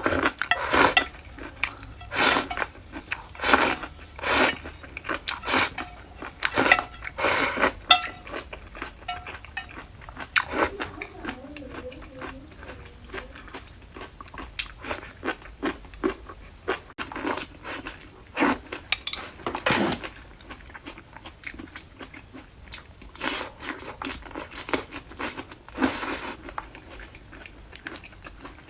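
Someone eating a bowl of sour cabbage noodles: chopsticks clinking and scraping against the bowl in short irregular strokes, with chewing.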